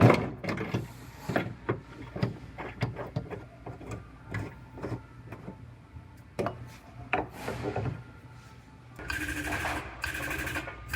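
Irregular metal clanks, knocks and rattles as a collision-repair pulling post and its chain are set up against the car. Near the end, a steadier mechanical running sound comes in.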